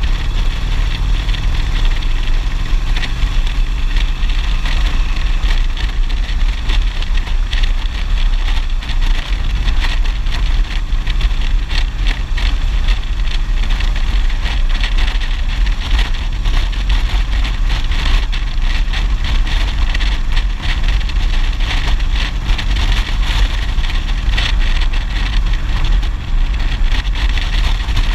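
Motorcycle running steadily at cruising speed, its engine mixed with heavy, steady wind rumble on the helmet-mounted microphone.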